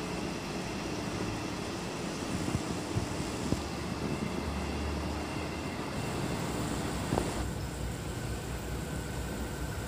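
Railway station ambience: a steady low rumble with a few light knocks, changing abruptly about seven and a half seconds in to a duller background with a faint steady tone.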